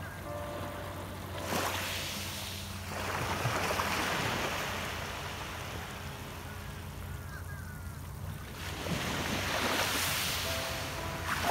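Small waves washing up onto a shell and pebble beach and drawing back, the wash swelling three times.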